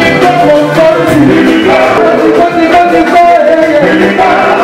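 Music playing loudly: a song with a singing voice over instrumental accompaniment.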